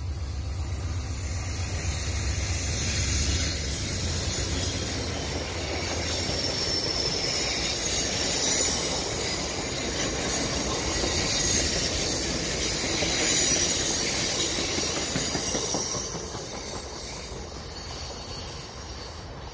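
VIA Rail train of 1950s Budd stainless-steel passenger coaches rolling past on a tight curve, with steady wheel rumble and clacking and intermittent high-pitched flange squeal from the wheels in the curve. The sound fades over the last few seconds as the train pulls away.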